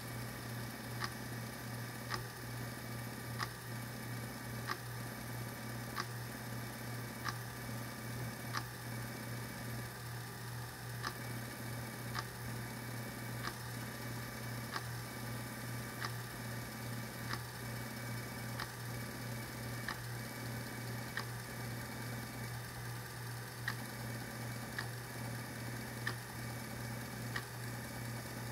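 An opened floppy disk drive spinning a bare diskette out of its jacket while reading it: a steady motor hum with a sharp click from the read head stepping to the next track about every 1.3 seconds.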